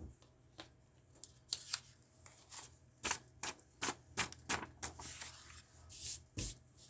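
A hand handling a sheet of drawing paper on a hardboard drawing board. There are about a dozen quick swipes, rustles and taps as the paper is brushed and slid into a new position.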